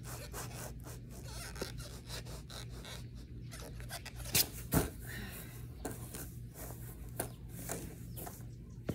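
Skateboard knocking and scraping on a grass lawn during kickflip attempts, with two loud thuds close together about halfway through as the board comes down. A steady low hum runs underneath.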